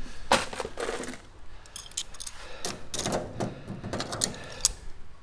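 Scattered light clicks and knocks of tools and parts being handled on a metal aircraft fuselage, with a short run of metallic ticks and rattles about two seconds in.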